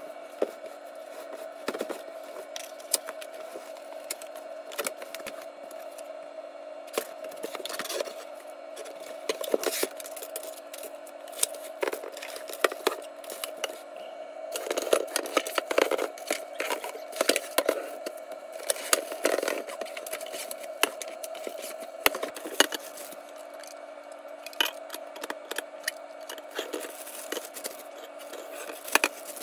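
Plastic food storage containers with push-button lids being unpacked: cellophane wrapping crinkling, cardboard box handled, and hard plastic containers knocking and scraping as they are set down on a countertop, in many irregular clicks and rustles that are busiest in the middle. A steady hum runs underneath.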